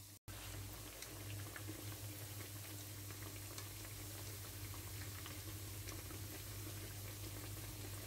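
Potato, tuna and surimi fritters deep-frying in plenty of olive oil: a steady bubbling sizzle with scattered small pops.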